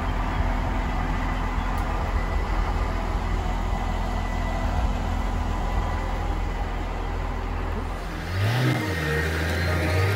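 Wheel loader's diesel engine running steadily under load as it carries a car body on its forks. About eight seconds in the engine note changes, rising briefly in pitch before settling again.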